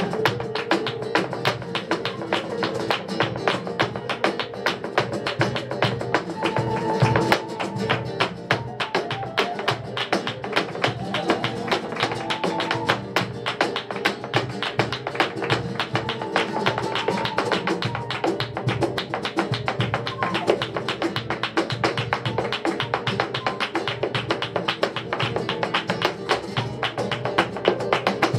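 Live flamenco music: guitar playing under a dense run of sharp rhythmic taps and stamps from a dancer's footwork, with a singing voice rising over it now and then.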